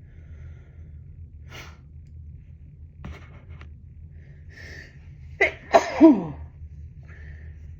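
A person's sneeze, set off by snuffed Chinkni sneezing powder in a congested nose. A few faint sniffing breaths come first, then a little past halfway the sneeze arrives in two quick bursts, the second with a voiced cry that falls in pitch.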